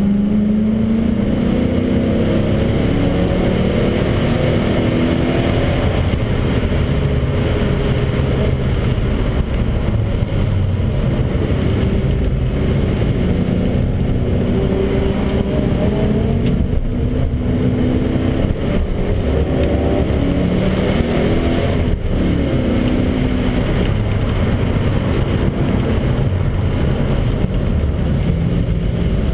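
BMW 540's V8 engine heard from inside the car under hard track driving. Its pitch repeatedly climbs and drops as it is revved through the gears, over steady road and tyre rumble.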